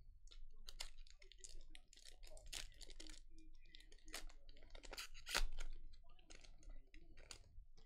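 Trading-card pack wrapper crinkling and tearing as it is opened by hand, with cards shuffled against it: irregular crackles all the way through and one sharper crack about five and a half seconds in.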